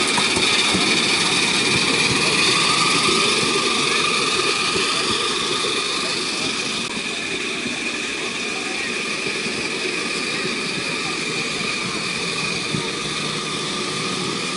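Miniature live-steam Crampton locomotive and its passenger riding car running along the track: a steady rolling rumble with a held, slightly wavering whine over it. It eases off after about five seconds as the train draws away.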